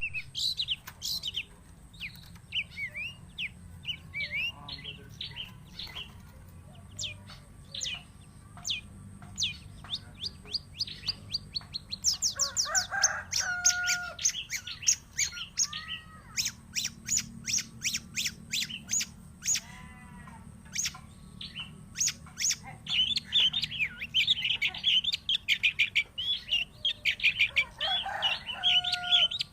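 Long-tailed shrike (cendet) in full song: a varied stream of high chirps and quick trills, turning into fast, loud rattling runs about halfway through, with a few lower-pitched calls mixed in.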